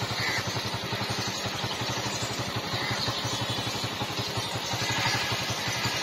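A small engine running steadily nearby with a rapid, even putter.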